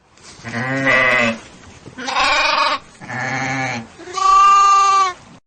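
Farm animal bleating four times, each call about a second long. The last call is higher-pitched and the loudest.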